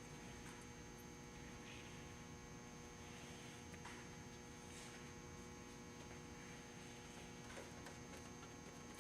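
Faint steady electrical mains hum, with a few faint soft rustles and ticks of handling scattered through it.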